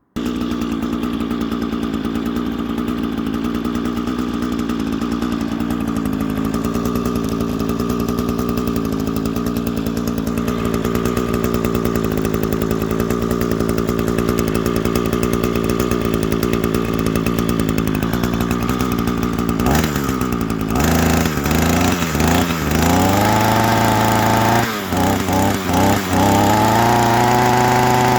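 A small engine running steadily, then from about two-thirds of the way through its pitch drops and climbs again several times in quick revs, settling higher near the end.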